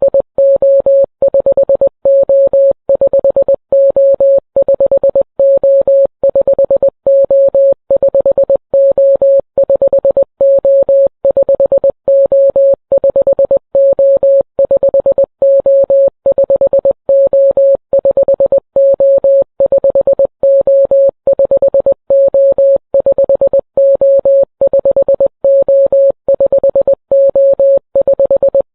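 Morse code beeps signalling SOS: a single steady tone keyed on and off in short and long pulses, the distress call repeating over and over.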